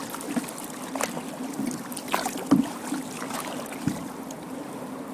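Kayak paddles dipping into the river, with irregular splashes and drips at each stroke over a steady low hum.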